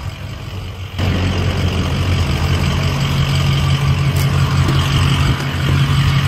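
A pickup truck's engine idling steadily and loudly, with a low, even hum; it gets suddenly louder about a second in and then holds steady.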